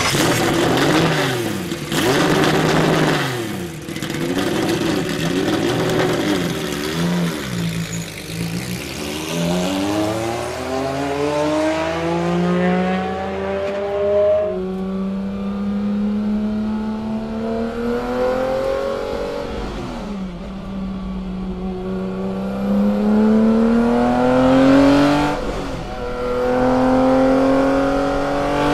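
BMW M1 ProCar's straight-six racing engine, revved up and down several times at a standstill, then pulling away with the revs climbing in long rising sweeps that drop back twice at gear changes.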